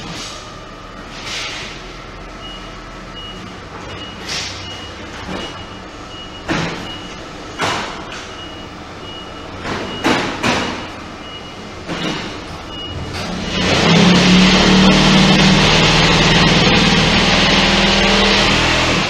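Automatic concrete brick-making press line (QT6-15) running through its cycle: a regular high warning beep and scattered sharp metal clanks, then, about 13 seconds in, a much louder steady buzzing hum that holds for the last five seconds or so as the press vibrates and compacts the mix in the mould.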